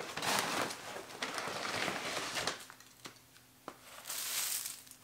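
Wood shavings being handled and poured from a scoop onto a concrete floor: rustling for the first couple of seconds, two light clicks, then a hissing pour about four seconds in.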